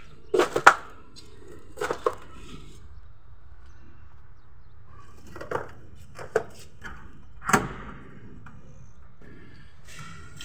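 Irregular sharp knocks of a tool striking wood, about eight blows with brief ringing: a quick triple at the start, a pair about two seconds in, then three single knocks spaced about a second apart.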